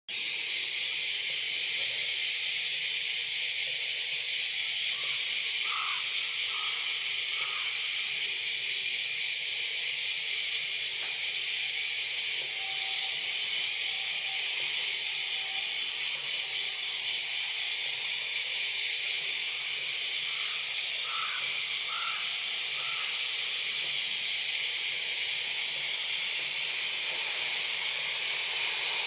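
Steady, high-pitched hiss at an even level, with a few faint short chirps twice along the way. No jet engine noise stands out.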